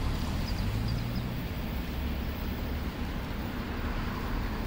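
Steady low rumble of wind buffeting the microphone, mixed with the distant running of a historic GFM metre-gauge electric railcar train as it approaches.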